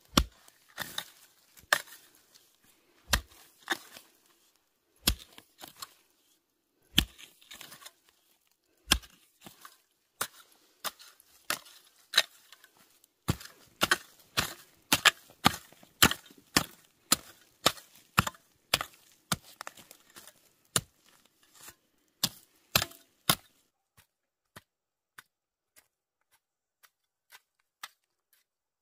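A long-handled metal-tined cultivator fork chopping into dry, clumpy soil, each stroke a sharp crunching hit as the clods break up. The strokes come every second or two at first, then quicker, about two a second, and near the end they fade to faint ticks.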